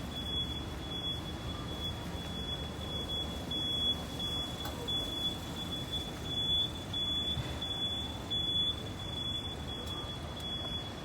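Steady low background rumble with a thin, steady high-pitched tone over it.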